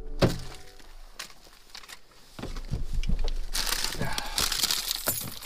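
Someone moving about in a car seat: clothing rustling and crinkling with scattered clicks, and a couple of sharp knocks near the start.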